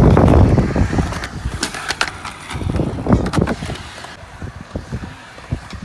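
Skateboard wheels rolling on smooth concrete, a rough rumble that is loudest at the start and fades and swells, with several sharp clacks of the board.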